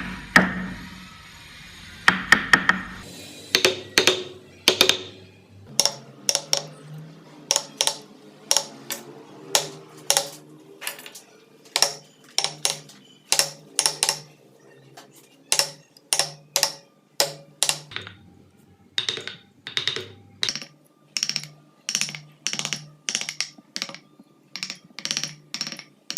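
Mallet striking a wood carving chisel in a steady series of sharp taps, about one and a half to two a second, with a short pause past the middle.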